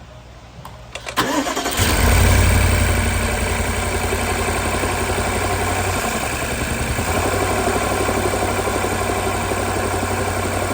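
BMW N63 twin-turbo V8 cranking and catching about a second in, then settling to a steady idle. Cylinder 4 is misfiring because its coil is getting no spark, a fault the owner traces towards the DME.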